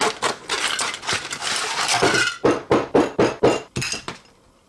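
Metal aerosol spray paint cans clinking and knocking against each other and the table as they are handled and set down in a row, a quick run of sharp clinks before it goes quiet near the end.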